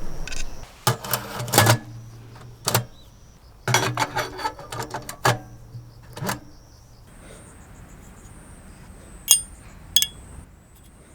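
Steel parts of a small wood stove being handled: clusters of clanks and rattles with a short metallic ring, then two single sharp clicks near the end.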